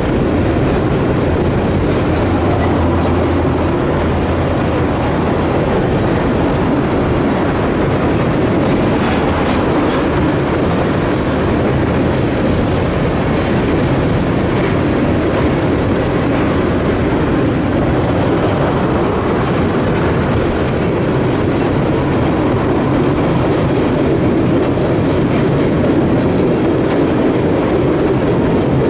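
Freight train of tank cars rolling over a steel trestle bridge: steady wheel-on-rail noise from the passing cars.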